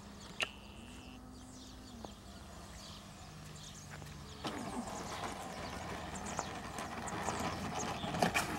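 Flip-flops slapping on asphalt as a person walks briskly, starting about halfway through and ending in a few sharper knocks. A faint steady hum is heard before the steps begin.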